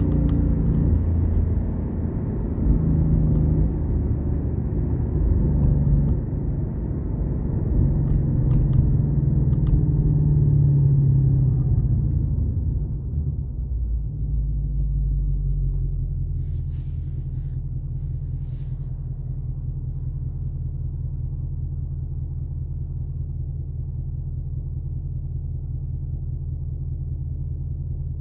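Ford Mustang engine heard from inside the cabin, running under light load at low speed, then easing off. From about halfway through it settles into a steady idle as the car sits stopped in traffic.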